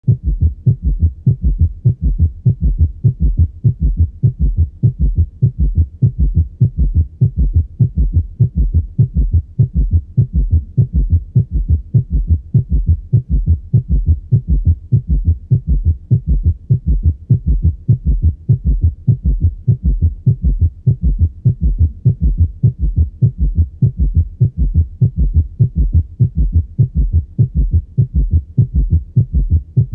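Auscultated heart sounds in a fast, evenly repeating gallop rhythm: a summation gallop, where in tachycardia the third and fourth heart sounds fuse into one extra sound. It is the sign of severe cardiocirculatory failure.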